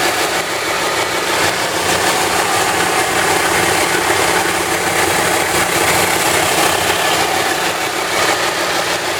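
Baileigh 6-inch by 48-inch belt and 9-inch disc sander combo, with a 1.5-horsepower 115-volt motor, running steadily after being switched on: a loud, even running noise over a low motor hum.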